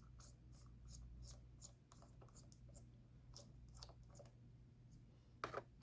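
Faint clicks and scratches of a precision screwdriver turning out the small screws of a laptop's bottom panel.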